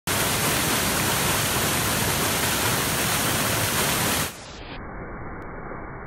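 Waterfall on the Steinen Bach crashing onto rocks, a loud steady rush of water. About four seconds in it suddenly drops in level and turns dull and muffled, the top end cut away, as the slow-motion playback sets in.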